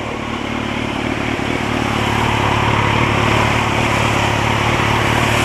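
Motorcycle engine running while riding, with a steady hiss of wind and road noise that grows louder about two seconds in.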